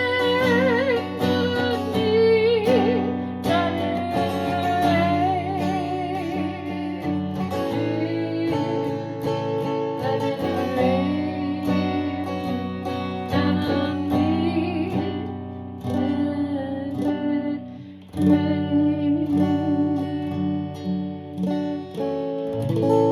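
Acoustic guitar music: picked and strummed chords ring on, with a wavering melody line over them in the first half, a brief drop in level, then a strong new chord.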